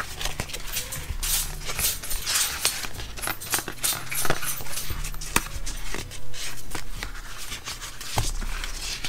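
Pages of a Happy Planner budget sticker book being leafed through: paper and sticker sheets rustling and flapping, with a few sharp ticks.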